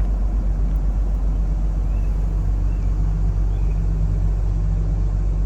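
A large engine idling nearby: a steady, even low rumble.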